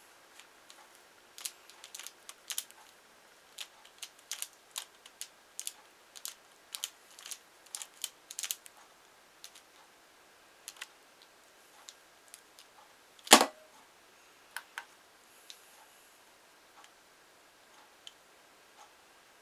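Sharp plastic clicks in quick irregular runs from a laptop keyboard and a pyraminx puzzle being turned, thinning out after about eight seconds, with one loud knock about two-thirds of the way through.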